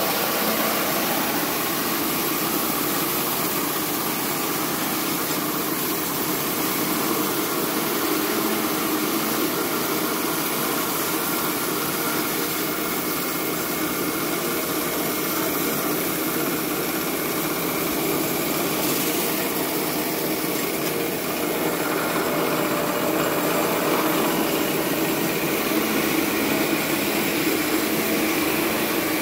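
Small electric rice milling machine running steadily as it mills raw paddy, its motor and milling drum giving a continuous whirring drone, a little louder from about two-thirds of the way through.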